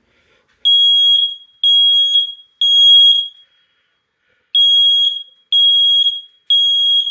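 Old ionization smoke detector sounding its alarm in the temporal-three evacuation pattern: three high-pitched beeps, a pause, then three more.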